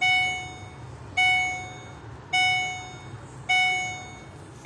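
An electronic warning chime sounds again and again, about once every 1.2 seconds, each tone struck sharply and dying away. It comes just after the parking lights are switched on, fitting a lights-on reminder chime.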